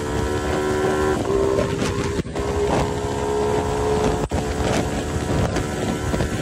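Honda CB250 Twister's fuel-injected single-cylinder engine running at high revs as the bike accelerates at highway speed, breathing through an open BMB pod air filter fitted straight to the throttle body. Wind rushes steadily over the microphone.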